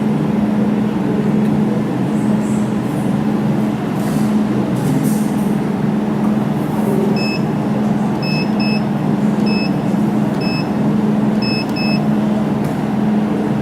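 Steady hum of a jewelry laser welding machine running, with a series of short high electronic beeps in the second half, some in quick pairs.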